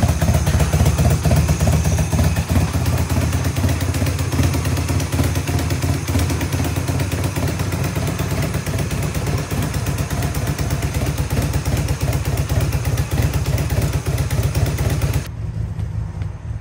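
1988 Honda CMX250 Rebel's 234 cc parallel-twin engine running steadily with the bike on a stand, driving its rear wheel as a winch for a tow rope. The sound drops abruptly to a quieter level near the end.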